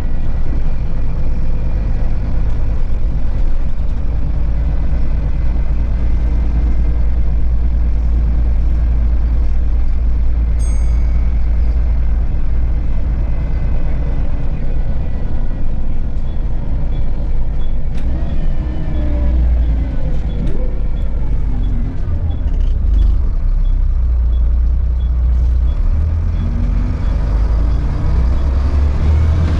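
Volvo B7RLE bus's six-cylinder diesel engine running as the bus drives, heard from inside the passenger cabin as a steady low drone. Its pitch rises about two-thirds of the way through, and a light regular ticking about once a second runs through the second half.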